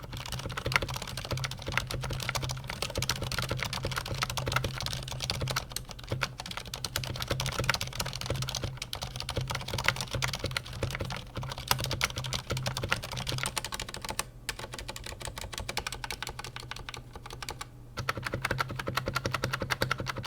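Continuous typing on a Fnatic miniStreak keyboard with Cherry MX Silent switches: a quick, steady run of quiet key clicks, with two short breaks in the last third.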